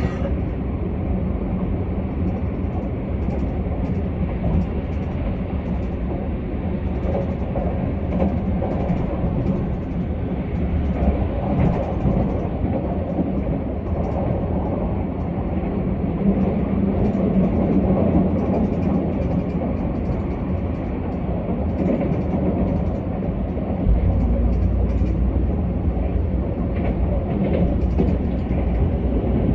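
Keisei AE-series electric train running at speed, heard from inside the car: a steady rumble of wheels on rails with scattered light clicks, the low rumble growing heavier about three-quarters of the way through.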